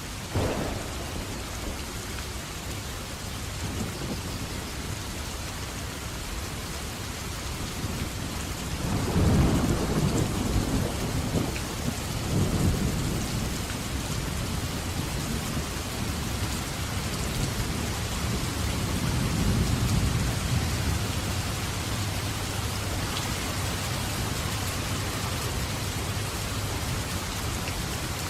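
Steady heavy rain with thunder: a sharp crack just after the start, then long low rumbles, loudest about a third of the way in and swelling again after two-thirds.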